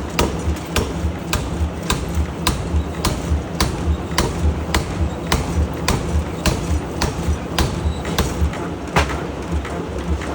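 Forging hammer striking hot steel in a steady rhythm, about two blows a second, over a constant low machinery hum.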